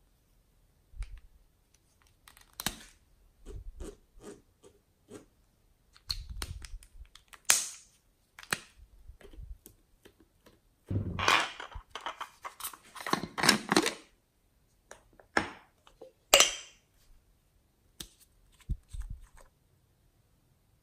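Handling sounds from decorating slime in a glass tray with small plastic tubes and applicators. Scattered clicks and taps come throughout, with a denser run of noise for a few seconds in the middle.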